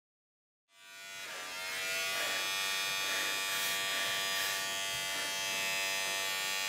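Philips electric beard trimmer buzzing steadily as it trims a moustache, fading in about a second in.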